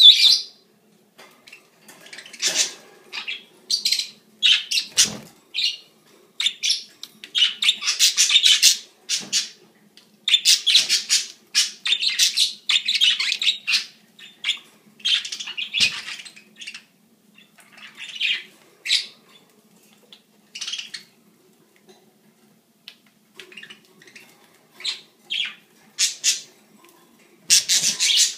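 A flock of pet budgerigars chirping and chattering in short irregular bursts of high-pitched calls, with a brief lull about three-quarters of the way through.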